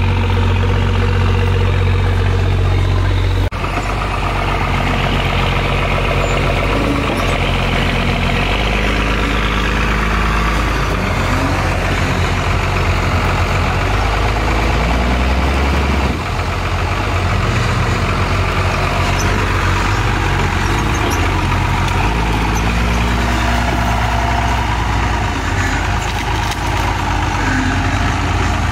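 Off-road Jeep Wrangler engines running under load as the Jeeps crawl over ruts and a log, revving up several times. The sound changes abruptly twice, at cuts in the footage.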